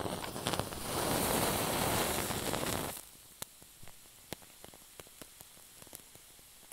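Oil torch being lit with a lighter: the wick catches with a rushing hiss for about three seconds, then the torch flame burns quietly with faint crackling and scattered small pops.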